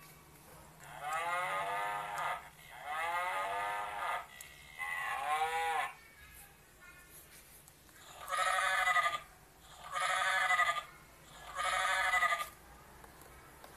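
Recorded animal calls played from a sound book's small speaker: a cow mooing three times, then, after a pause, a sheep bleating three times.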